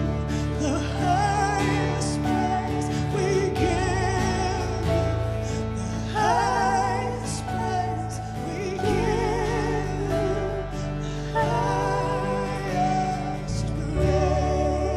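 Live worship music: women singing slow, held lines with vibrato over sustained band chords from keyboard and electric guitar, the chords changing every few seconds.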